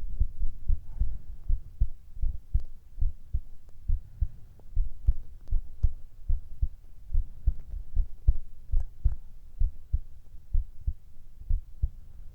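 Human heartbeat heard close up: a regular run of low, soft thumps.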